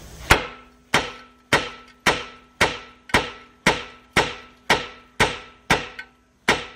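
Hammer striking the front hub carrier of a Range Rover L322 beside the lower ball joint, about two sharp metal-on-metal blows a second, each with a short ringing decay, as he tries to shock the seized ball joint taper loose; it does not release.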